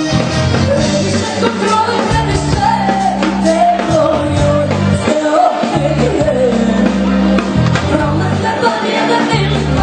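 Live band playing loud folk-pop dance music, with keyboard and electric guitar over a steady bass and an ornamented melody line that bends in pitch.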